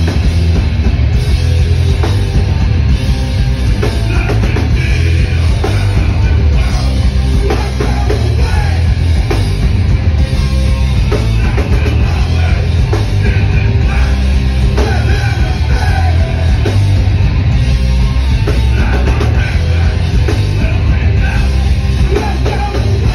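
Hardcore punk band playing live at full volume: distorted guitars and bass, pounding drums and vocals into the microphone, heavy in the low end.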